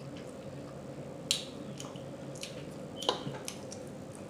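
Wet mouth smacks and clicks from someone chewing pit beef, with sharp smacks about a second in and again around three seconds in. A faint steady hum runs underneath.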